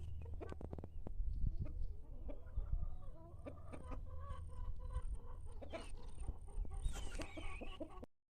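Short animal calls with scattered clicks and knocks over a steady low hum. The audio cuts out briefly near the end.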